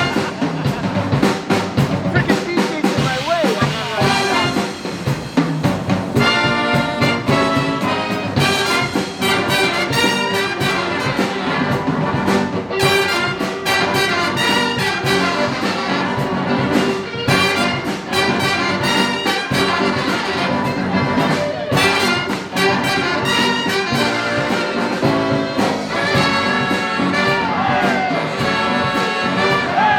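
Live jazz big band playing, with the trumpet and trombone sections to the fore in short repeated chords, and a few pitch slides.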